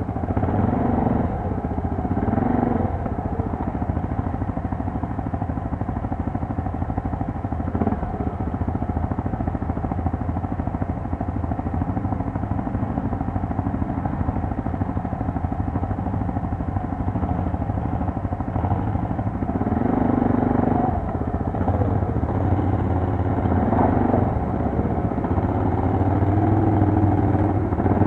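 Quad bike (ATV) engine running steadily while riding, its revs rising and falling briefly near the start and several times in the last third as the throttle changes.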